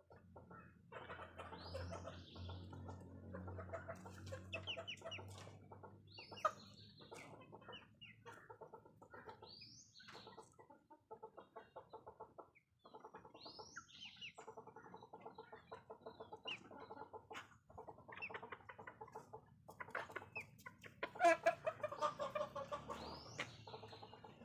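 Chickens clucking, with a few brief high rising calls among the clucks and a louder run of clucking near the end.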